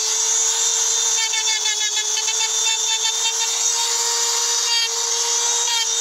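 Handheld electric rotary engraving tool running with a steady whine while its pointed bit grinds lines into a dark stone slab, with a hissing scratch from the cutting.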